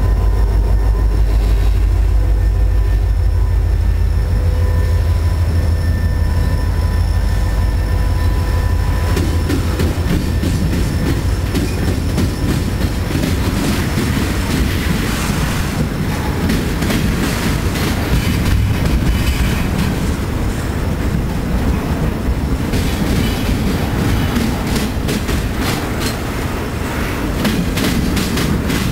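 Freight train passing close by. A deep diesel locomotive rumble dominates the first several seconds. Then flatcars loaded with wind turbine tower sections roll past, their wheels clicking over the rail joints, densely and sharply in the last few seconds.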